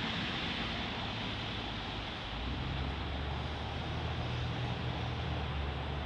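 Steady outdoor street ambience: an even hiss with a low rumble of distant traffic that swells about two seconds in.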